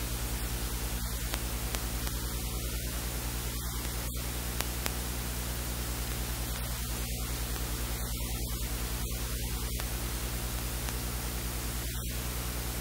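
Steady hiss with a low electrical hum, the noise floor of the recording, with a few faint clicks.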